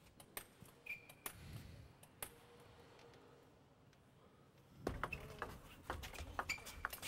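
Table tennis ball and rackets: a few scattered taps of the ball while the serve is prepared, then from about five seconds in a quick rally of sharp clicks as the ball strikes the rackets and the table, with a couple of short high squeaks.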